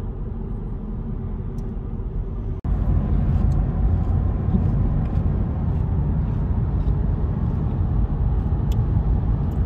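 Steady road noise and engine rumble heard inside a moving car. About two and a half seconds in, the sound cuts out for an instant and comes back louder.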